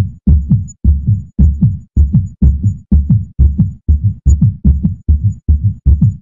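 Heartbeat sound effect: a low double thump (lub-dub) repeating steadily about twice a second.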